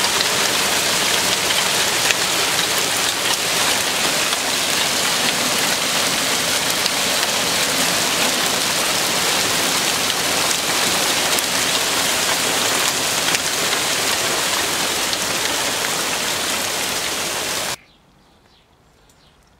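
Hailstones falling steadily and striking the ground, paving and garden plants: a loud, dense hiss of countless small impacts, which cuts off suddenly near the end.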